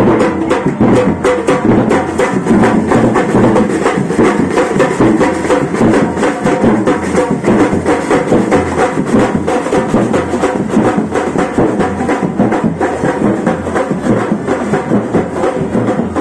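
Drums and percussion playing music with a fast, steady beat of sharp strikes.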